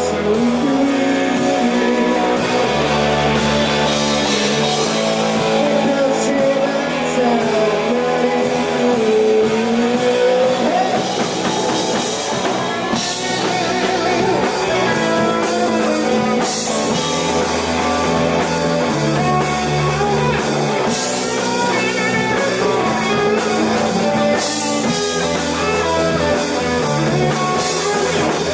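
Rock band playing live: electric guitars over bass and a drum kit, the bass notes changing every couple of seconds.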